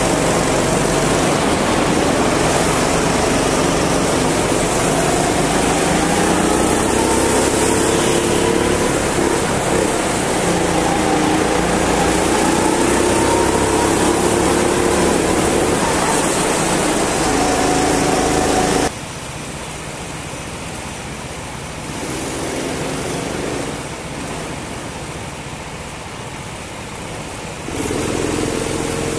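Rental go-kart engine heard onboard while racing, its pitch rising and falling as the kart accelerates and lifts off through the corners, with other karts running close by. About two-thirds through, the sound suddenly drops in level, then comes back up shortly before the end.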